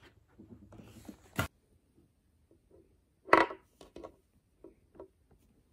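A small vinyl Funko Pocket Pop figure set down on a wooden tabletop: one sharp knock about three and a half seconds in, followed by a few light taps as it is nudged into place. Earlier there is a single sharp click and some faint rustling from handling.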